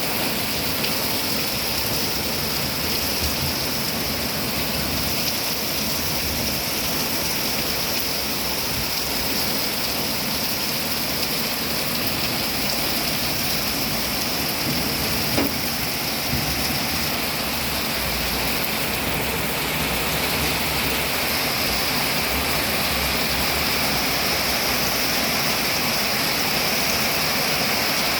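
Heavy rain pouring steadily during a thunderstorm, an even hiss of water, with one sharp click about halfway through.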